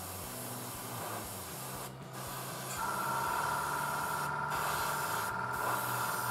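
Gravity-feed airbrush hissing as thinned paint is sprayed, the hiss breaking off briefly three times. From about three seconds in the hiss gets louder and a steady high whistle joins it.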